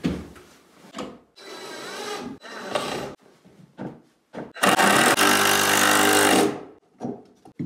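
A power drill runs steadily for about two seconds past the middle. Before it come a shorter whir and a few knocks on wood.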